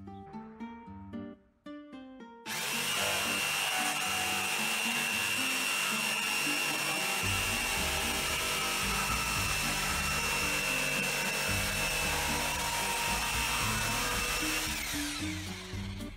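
An electric power tool starts suddenly about two and a half seconds in and runs steadily at speed with a high, even whine, then winds down with a falling pitch near the end. Guitar background music plays under it.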